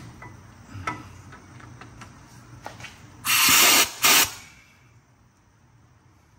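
Pneumatic wrench on an air hose run in two short bursts, the first about half a second and the second briefly right after, spinning the nut on a seized rear sway bar end link. A few light knocks from the work come before it.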